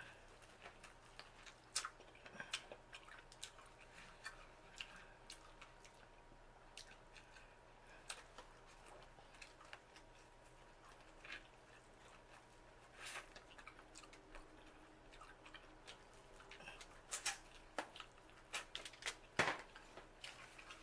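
A person eating seafood boil close to the microphone: scattered wet clicks and smacks of chewing, with a few louder clicks near the end.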